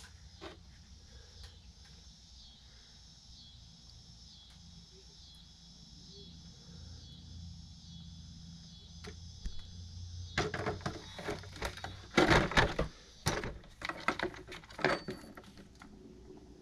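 Packaging and the model car being handled: a quiet stretch with only a low hum, then from about ten seconds in a run of rustles, scrapes and clicks.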